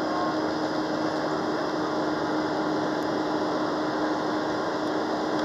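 Boeing 737 jet engines running steadily during takeoff: an even rushing noise with a steady hum.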